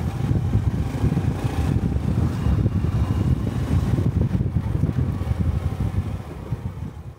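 Honda Cub 125 cc single-cylinder motorcycle engine and exhaust running while riding. It fades out near the end.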